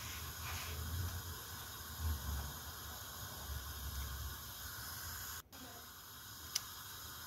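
Pot of salted water boiling with fresh tortelloni in it on a gas hob: a steady low hiss with soft bubbling rumbles. The sound cuts out briefly about five and a half seconds in.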